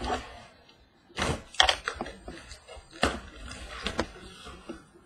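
A cardboard shipping case being handled and opened on a table: a few sharp knocks and scrapes of cardboard, the loudest about a second and a half in and again near three and four seconds.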